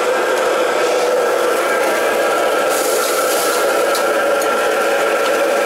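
Steady roar and hum of a commercial wok range's gas burners and kitchen extraction, with a few light clinks of a metal ladle against a wok.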